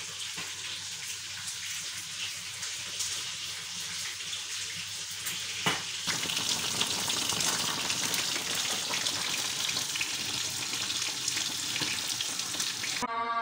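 Steady kitchen hiss like running water or sizzling, growing louder and fuller after a sharp click about six seconds in. Music comes in just before the end.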